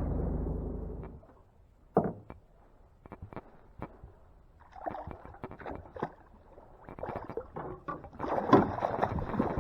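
Background music fading out, then scattered knocks and splashes of a small boat being worked along on the water, growing busier near the end.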